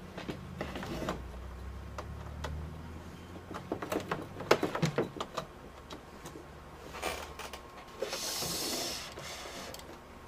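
Scattered clicks, knocks and rubbing as an external monitor cable is fumbled into the port on the back of a laptop. A low hum fills the first few seconds, and a brief hiss comes about eight seconds in.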